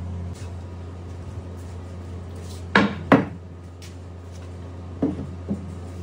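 Hard wooden knocks from a drawer and scrap boards being handled: two sharp knocks close together about three seconds in, and two softer ones near the end, over a steady low hum.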